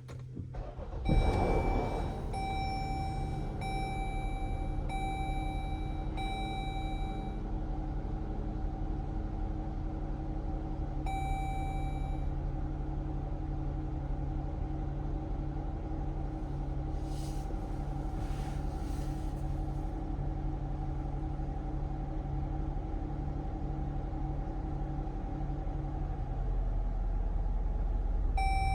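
2018 Chrysler Pacifica's 3.6-litre V6 starting about a second in, then idling steadily. Dashboard warning chimes ring five times about a second apart, again once later and once near the end. Near the end the low rumble grows heavier, where the idle turns rough from the van's P0300 multiple-cylinder misfire.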